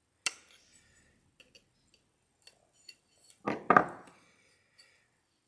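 Needle-nose pliers working at the seals of an aluminium carburetor manifold adapter plate: a sharp metal click, then a few light ticks. About three and a half seconds in comes a louder double clatter as the pliers are set down on the wooden workbench.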